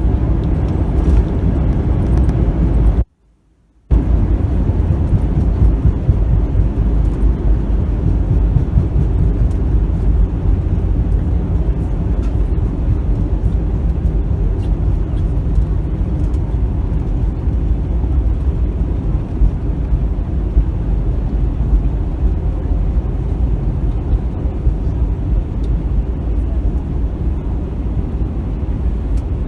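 Steady low rumble inside the cabin of an Airbus A321, from its engines and the air and ground noise around it. The sound cuts out to near silence for under a second about three seconds in.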